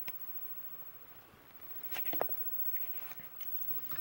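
Faint clicks and light taps of small metal lock pins and springs being handled, with a short cluster of clicks about two seconds in.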